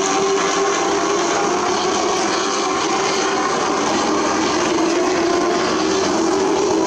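Short-track stock cars racing around the oval, their engines running loudly and steadily together, with the pitch slowly rising in the second half as they accelerate.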